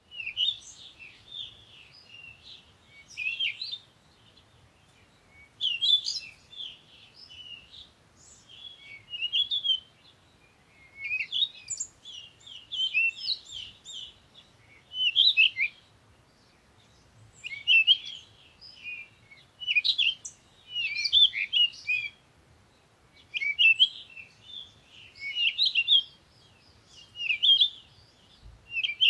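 Songbird singing: short phrases of quick, varied high chirps every two or three seconds, with short pauses between.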